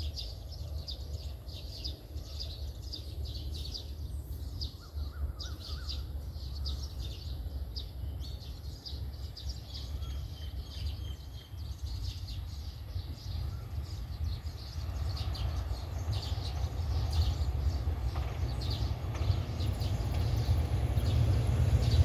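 Birds chirping over a low steady rumble. From about fifteen seconds in, the sound of an approaching diesel-hauled express train grows steadily louder.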